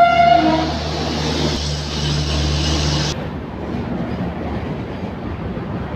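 A superfast express train hauled by a WAP-7 electric locomotive passing at speed: its coaches' wheels run loudly over the rails, with the tail end of the locomotive's horn in the first half-second. The rolling noise drops off sharply about three seconds in.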